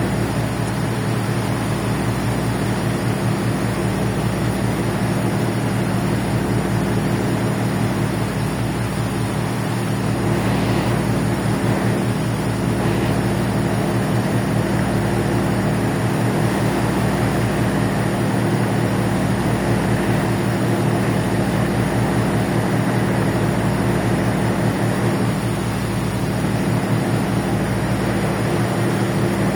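Ferry's engines running with a steady low drone, with a constant rushing noise over it.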